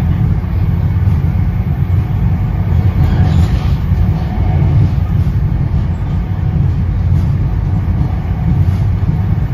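Steady low rumble heard inside an NJ Transit Comet II/IV passenger coach running at speed, the wheels rolling on the rails, with a brief louder hiss about three and a half seconds in.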